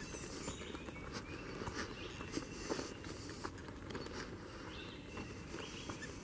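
A hiker's footsteps crunching along a dirt forest trail with leaf litter, about one step every half second.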